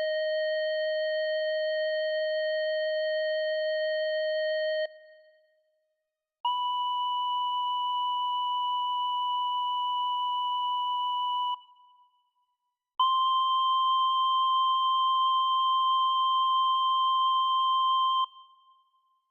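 LG KS10 mobile phone tone: three plain electronic tones, each held steady for about five seconds with short pauses between. The first is lower; the second and third are higher and close in pitch.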